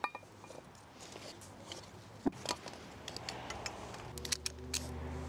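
Ratchet strap buckle clicking as it is worked by hand, in scattered, irregular clicks. A steady low hum comes in about four seconds in.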